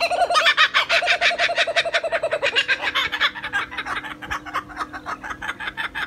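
Laughing kookaburras cackling together: a loud, fast run of repeated calls, about eight a second, easing to a softer chatter after about two and a half seconds.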